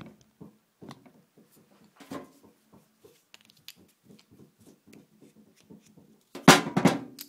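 Light clicks and knocks of a skateboard wheel and bearing being handled and pried at, then a loud, rough rustle of hands right against the phone's microphone near the end.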